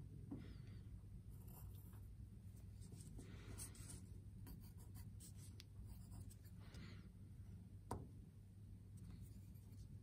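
Faint pencil scratching on paper in a few short strokes, tracing an outline, with a light tap about eight seconds in.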